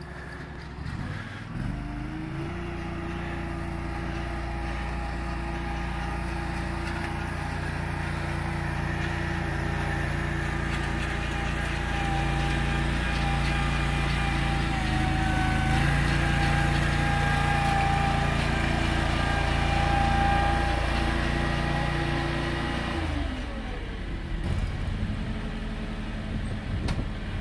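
John Deere X738 lawn tractor engine climbing a steep slope: it revs up about two seconds in, runs steadily under load and grows louder as the tractor comes nearer, then its engine speed drops near the end.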